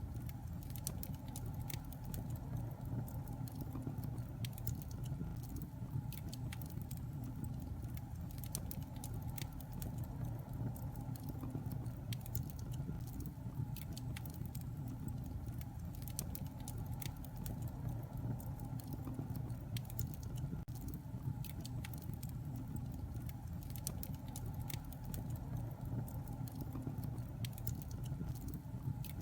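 Wood fire burning in a fireplace: a steady low rumble of the flames with frequent small crackles and pops from the burning wood.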